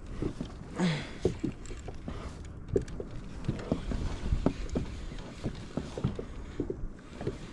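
Irregular knocks and taps on a fishing kayak's plastic hull over a low rumble of water, with a short falling sound about a second in.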